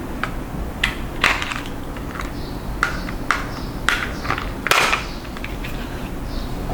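Scattered sharp clicks and short rustles of small plastic items being handled, about nine in all, the longest just before the five-second mark, over a steady low hum.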